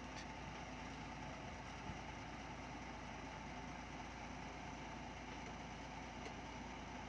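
Heavy diesel engine idling steadily, with no revving or change in pitch.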